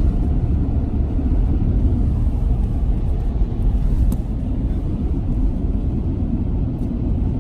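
Steady low rumble of a moving road vehicle, even and unbroken.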